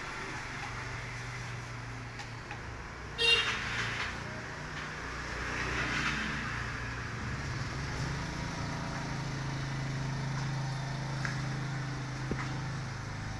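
A steady low mechanical hum that gets louder about eight seconds in, with one brief, loud, high-pitched squeak about three seconds in.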